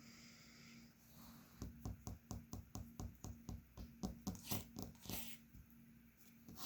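African grey parrot's claws clicking on a hard floor as it walks away: a quiet run of light taps, about four or five a second, starting a second or two in and stopping about five seconds in.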